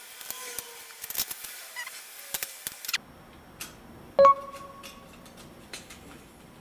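Small plastic clicks and knocks of plastic model-kit parts being handled and pressed together, with one sharp click and a brief ringing tone about four seconds in.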